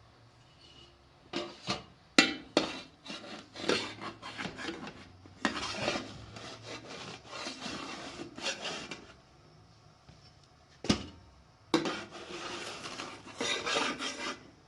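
Repeated rubbing and scraping strokes in short clusters with brief pauses, and one sharp knock about eleven seconds in.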